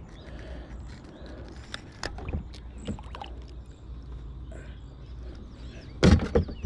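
Handling noise on a kayak: scattered light clicks and knocks, then a loud cluster of knocks near the end as the paddle is taken up.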